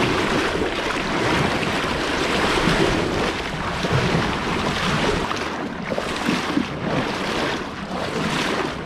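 Water rushing and splashing along the hull of a fishing kayak under way, with wind buffeting the microphone. From about halfway, the splashing comes in regular slaps about twice a second.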